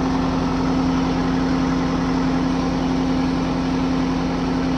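Kubota tractor's diesel engine idling steadily, with the rotavator not yet engaged.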